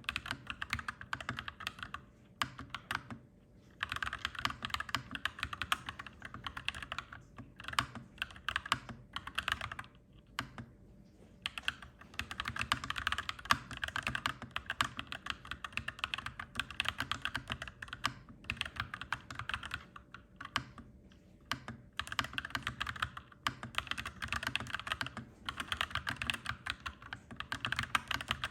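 Typing on a clacky mechanical keyboard: quick runs of keystrokes broken by short pauses every several seconds, over a faint steady low hum.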